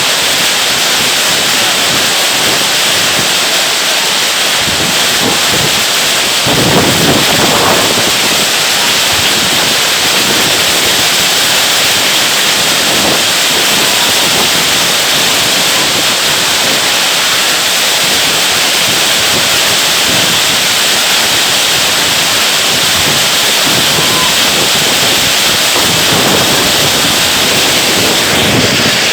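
Hail falling hard with rain, a dense steady hiss of many small impacts.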